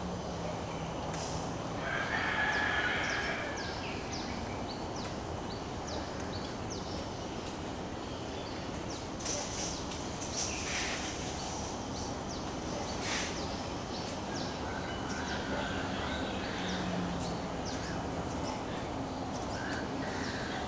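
Birds calling: many short, high chirps throughout, with a louder, longer call about two seconds in. A few sharp knocks come around the middle.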